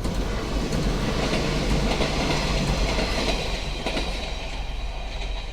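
A Fukuen Line train passing close by, its wheels clattering over the rail joints.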